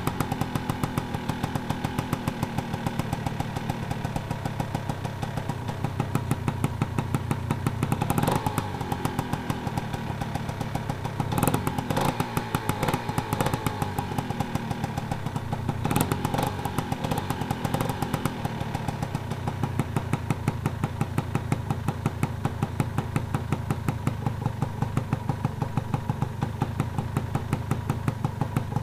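Honda NSR 125 R's single-cylinder two-stroke engine idling with a steady, rapid beat, revved briefly three times, about eight, eleven and sixteen seconds in.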